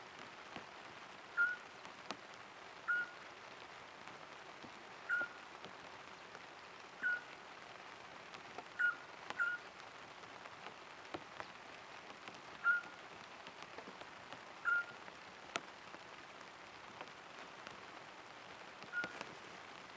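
Steady light rain falling on a tarp, with a water drip plinking at the same pitch every second or two at uneven spacing.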